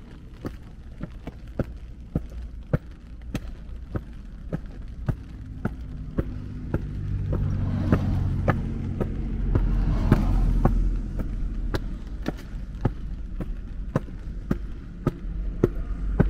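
Walking footsteps at a steady pace, about two steps a second. A car passes, its engine and tyre noise swelling to loudest about ten seconds in, then fading.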